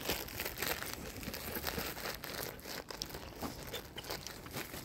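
Close rustling and crinkling with many scattered small clicks, at an uneven pace.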